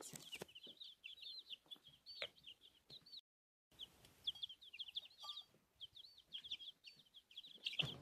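Week-old chicks peeping softly: a steady stream of short, high chirps, several a second, broken by a brief dropout to silence just after three seconds in.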